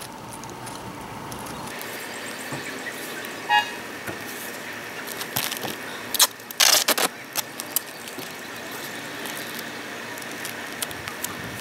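Duct tape handled in short crinkles and taps, with a loud tearing rip a little past the middle as a length is pulled off the roll.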